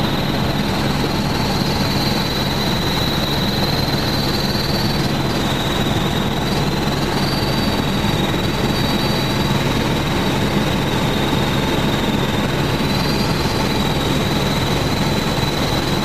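Helicopter in flight: steady engine and rotor noise with a high whine that wavers slightly in pitch.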